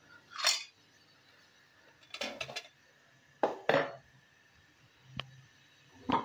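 Stainless steel cookware clinking and clattering as pieces of fish are taken from a steel bowl and added to a karahi of gravy: about six short clinks, spread irregularly, with a quick cluster a little after two seconds in.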